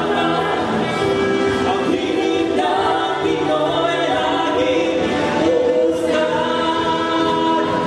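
A vocal group singing a song live, several voices in close harmony holding sustained notes.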